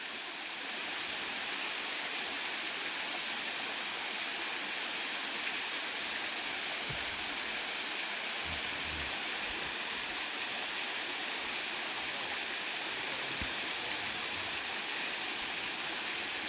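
Steady rush of water pouring down a waterfall, an even hiss with no change.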